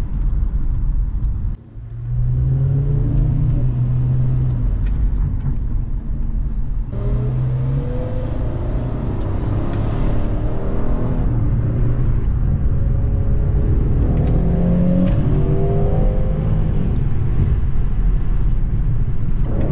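Car engine and road noise heard inside the cabin while driving, the engine note rising several times as the car accelerates. The sound drops out briefly about two seconds in.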